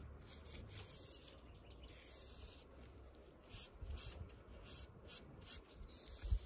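Folded paper towel rubbing over small mahogany pieces: soft scratchy wiping strokes that come faster and a little louder in the second half, over a faint low hum.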